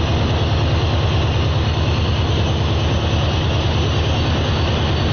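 Diesel train engine running steadily, a loud low throbbing rumble with an even beat.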